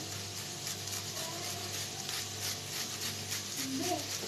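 Garlic clove rasped against a perforated metal grater in short, even strokes about three a second, over sliced onions sizzling in olive oil in a frying pan, with a steady low hum underneath.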